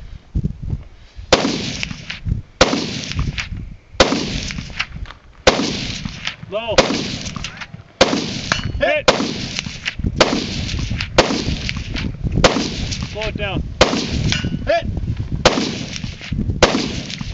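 A string of about fifteen gunshots at an even pace of roughly one a second. Several shots are followed by a brief ringing tone.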